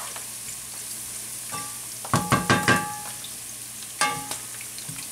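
Chopped garlic sizzling in olive oil in a frying pan. A utensil stirring it knocks and scrapes against the pan in short clusters about two seconds in and again about four seconds in.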